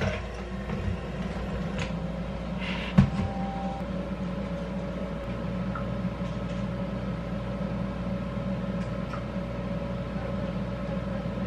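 Steady machine hum, with a few light clicks and one sharp knock about three seconds in.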